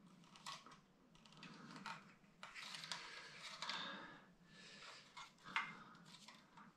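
Faint clicks and rustles of hands handling a small plastic-cased DC contactor and its wired control cable.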